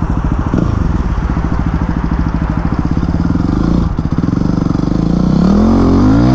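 Yamaha WR250X's 250 cc single-cylinder four-stroke engine running under load while riding. Its pitch dips briefly twice as the throttle eases, then climbs steadily as it revs up near the end.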